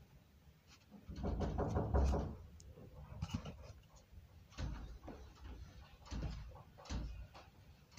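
Handling noise from a phone being set up by hand: a stretch of rubbing and bumping about a second in, then a few separate dull knocks against the phone later on.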